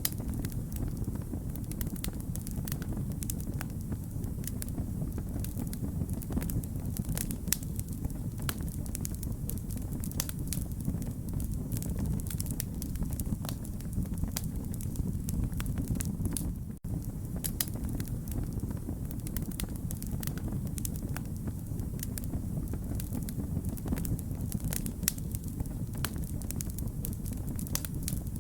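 Wood fire burning steadily, with a low rumble of flames and many sharp crackles and pops of burning logs. The sound cuts out for an instant about 17 seconds in.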